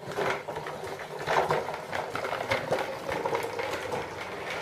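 Small plastic toy wagon's wheels rolling across a tile floor, a steady clattering rattle of many small clicks.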